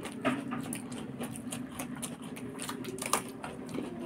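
Close-up eating noises: irregular lip-smacking and chewing clicks and crunches, with fingers working rice and chicken on steel plates, over a low steady hum.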